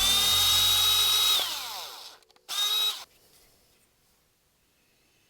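Power drill motor whining at a steady high speed for about a second and a half, then falling in pitch as it spins down. A second short burst of the whine comes about two and a half seconds in.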